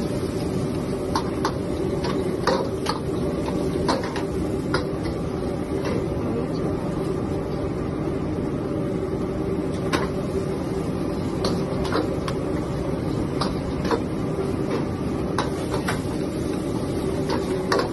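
Steady roar of a wok burner and kitchen exhaust with a steady hum, and scattered sharp clinks of a metal ladle striking the wok during stir-frying.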